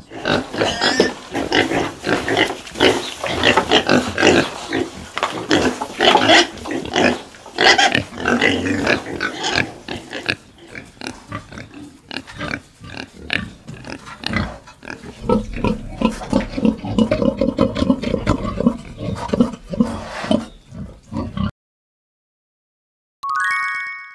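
A group of domestic pigs grunting and squealing, busy and loud for about the first ten seconds, then quieter grunting that cuts off suddenly. Near the end a short chime sounds.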